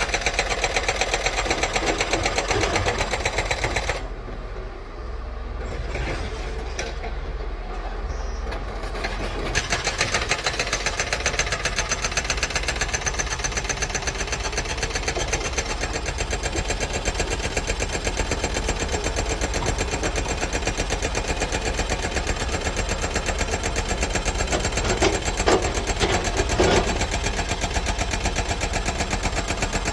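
Doosan 255LCV excavator's diesel engine running, with a rapid, even pulse. It turns quieter and duller for about five seconds starting about four seconds in, then comes back up. A few louder knocks come near the end.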